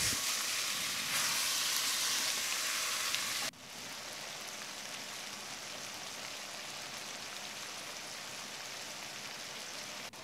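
Pheasant pieces sizzling as they fry on high heat in ghee in a cast-iron pot, a steady hiss. About three and a half seconds in it drops suddenly to a quieter, even sizzle.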